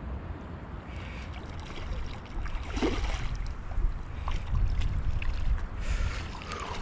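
A hooked trout splashing at the surface a few times as it is played in close to the bank, the clearest splash about three seconds in and more near the end as the landing net goes in. A steady low rumble on the microphone runs underneath.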